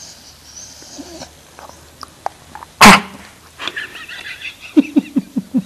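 Sleeping Cocker Spaniel vocalising in a bad dream. About three seconds in there is one sudden, loud, noisy huff of breath. It is followed by high whimpering, then a quick run of about five short, muffled, low woofs near the end.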